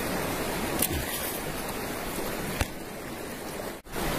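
River water running steadily over shallow stones, with two brief clicks about a second in and at about two and a half seconds. The sound cuts out for an instant near the end.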